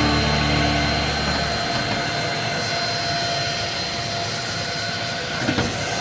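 Simplus 17000Pa vacuum cleaner running with its brush nozzle on a dusty door track: a steady rush of air with a thin high whine from the motor.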